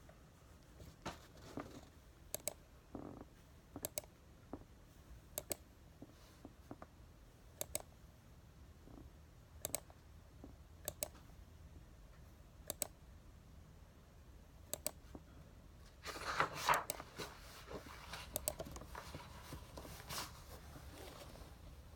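Drawing tools being handled: sharp, irregular clicks and taps every second or two. About 16 seconds in comes a louder stretch of scratching and rustling.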